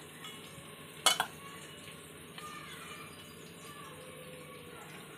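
Steel and glass kitchenware handled: one sharp clink about a second in, then faint scraping and light ringing as ground garam masala is tipped from a stainless steel mixer-grinder jar into a glass jar.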